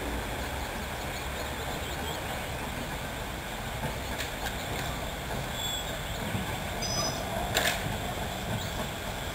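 Narrow-gauge steam locomotive running slowly in with its coaches: a low, steady rumble with one sharp clank near the end.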